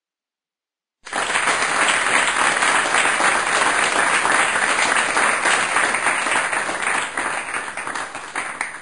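A crowd applauding, starting suddenly about a second in after a short silence, holding steady and tailing off near the end.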